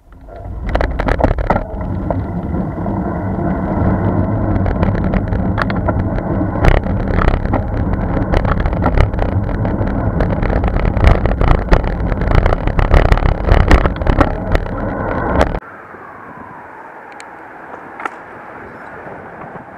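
Loud wind buffeting and road rattle on a bicycle-mounted camera while riding, with many sharp knocks from the road surface. About fifteen seconds in it drops suddenly to a quieter, steady wind rush.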